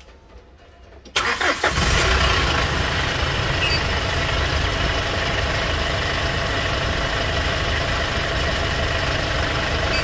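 Hyundai Porter 2 turbodiesel engine starting: a short crank that catches about a second in, then idling steadily.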